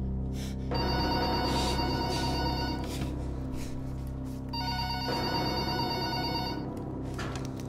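Push-button desk telephone ringing with an electronic ring, in long bursts separated by short gaps, over a low steady hum.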